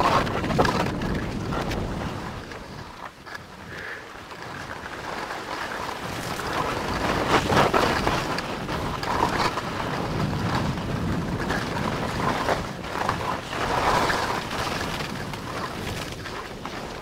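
Wind buffeting a body-mounted camera's microphone and the rough scraping of a fast descent over chopped, tracked-up snow. The noise rises and falls unevenly, easing briefly about three seconds in.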